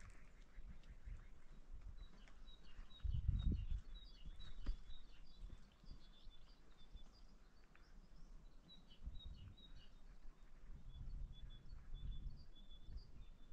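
Faint outdoor birdsong: small birds chirping in short high notes throughout, over a low rumble of wind on the microphone that gusts loudest about three seconds in.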